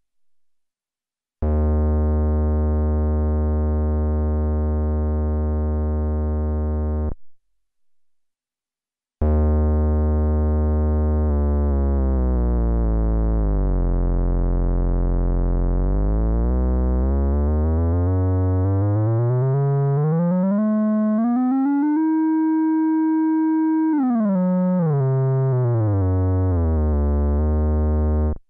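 Akai Rhythm Wolf's analog bass synth holding a low note for about six seconds. After a short gap it sounds a second note whose pitch is swept down, then up to a higher held note, then back down, as the tuning is tweaked.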